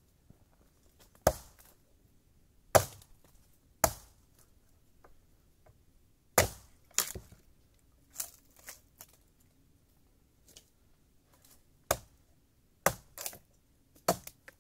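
About a dozen sharp chopping strikes at irregular intervals, some close together in pairs, each dying away quickly.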